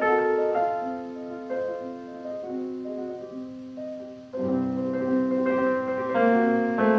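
Background piano music playing held melodic notes, growing fuller and louder with lower notes about four seconds in.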